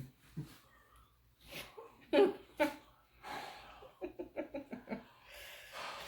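A man breathing hard through his mouth, overfull from eating, since he is too full to breathe out through his nose. A few short voiced huffs come about two seconds in, then a quick run of short puffs, and a long airy exhale near the end.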